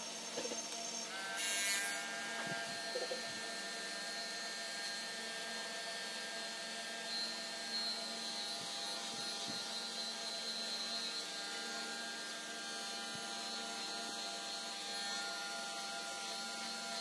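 Cordless electric hair clipper running with a steady buzz as it cuts short hair at the nape and behind the ear. There is a short loud burst about a second and a half in, after which the buzz carries more high tones.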